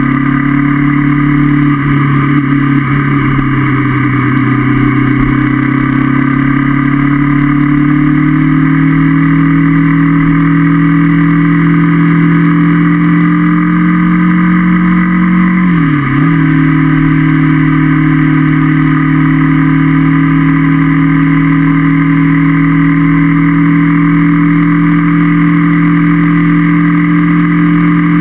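Honda CB500F's 471 cc parallel-twin engine under way. It pulls steadily with a slowly rising note, dips briefly in pitch about sixteen seconds in, then holds at a steady cruising note.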